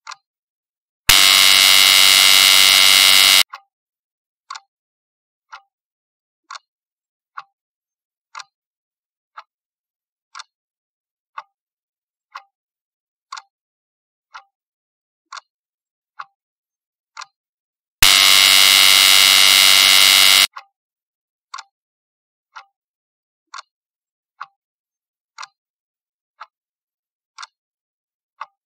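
Quiz countdown-timer sound effect: a clock ticking about once a second, broken twice by a loud, harsh buzzer lasting about two and a half seconds, sounding as the countdown reaches zero and the time for a question runs out.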